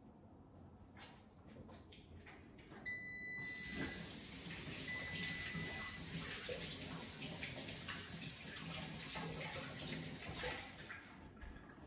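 Kitchen sink faucet running as hands are washed under it. The water comes on about three and a half seconds in and shuts off about a second before the end.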